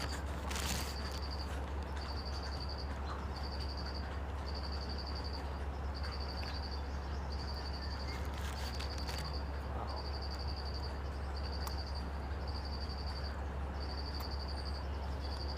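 An insect calling in short high trills at one pitch, evenly spaced about once a second, over a steady low hum. There is a sharp click just under a second in.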